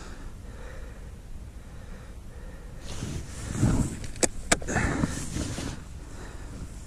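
Jacket rustling close to the microphone as the angler reaches over to his Lowrance fish finder, with two sharp clicks close together about four seconds in. A low wind rumble on the microphone runs underneath.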